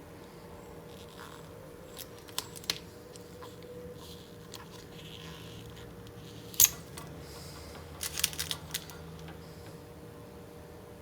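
Small clicks and ticks of hand work on a laptop LCD panel as its polarizer film is peeled off. They are scattered, with one sharp click about six and a half seconds in and a quick cluster about two seconds later, over a faint steady hum.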